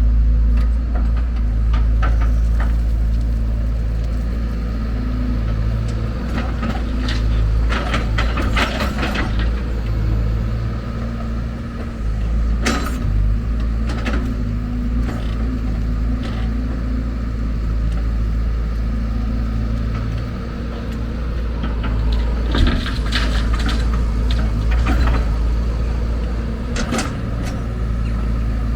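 Diesel engine of heavy earthmoving machinery running steadily, with scattered knocks and clatters, a few in a cluster, as the machine works.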